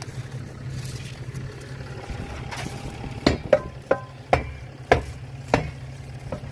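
About six sharp knocks, spaced roughly half a second to a second apart, over a steady low hum.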